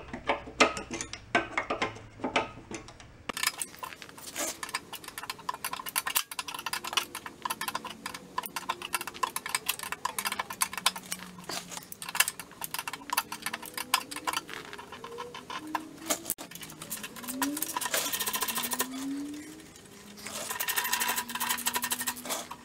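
Socket ratchet clicking in quick runs, with metal tool clinks, as a nut is backed off. The fastest, loudest runs of clicks come near the end.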